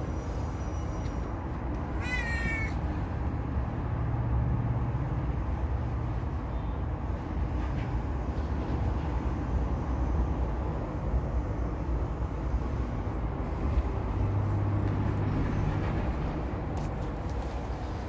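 Domestic cat meowing, with one short high call about two seconds in, over a steady low background rumble.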